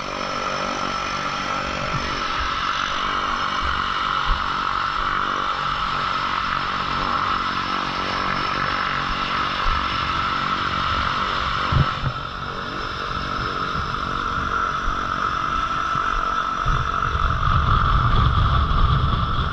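Aircraft engine running steadily, a drone with a high, even whine. It grows louder, with more low rumble, in the last few seconds.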